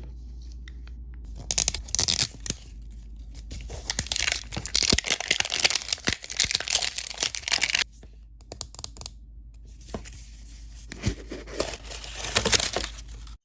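Plastic blind-bag packaging being torn open and crinkled by hand, in three bouts of rustling, the longest in the middle.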